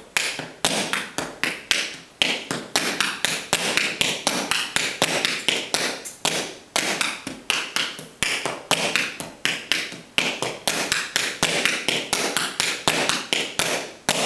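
Tap shoes' metal taps striking a hard floor in a continuous rhythmic run of crisp clicks, about four a second, stopping right at the end.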